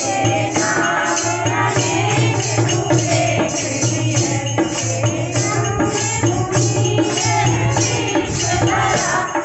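A group of women singing a Hindi devotional prayer together, accompanied by a dholak and a jingling hand percussion that keeps a steady beat.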